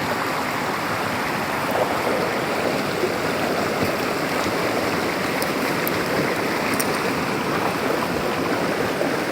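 Flowing water rushing steadily, a constant even noise, with a few faint high ticks.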